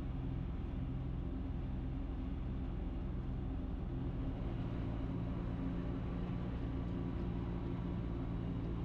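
Ikarus C42 microlight's engine idling steadily, a low even hum whose pitch shifts slightly about halfway through.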